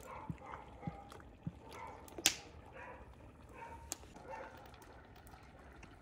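A dog giving short calls now and then, with three soft knocks in the first second and a half and one sharp click about two seconds in.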